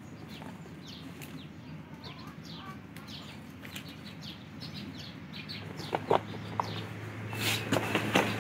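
Domestic chickens calling in a long run of short, high, falling peeps. A low steady hum comes up in the last few seconds, with a few sharp knocks and rustles near the end.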